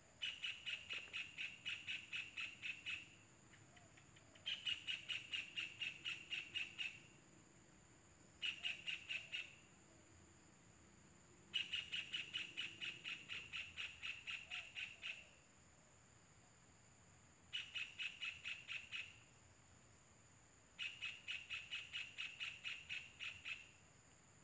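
Kingfisher calling in six bursts of rapid repeated notes, about four a second, each burst lasting one to four seconds with short pauses between.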